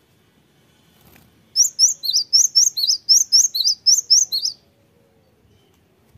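Cinereous tit (gelatik batu) singing: about a second and a half in, a loud, fast run of roughly fourteen high, sharply rising whistled notes, about five a second, that stops after about three seconds.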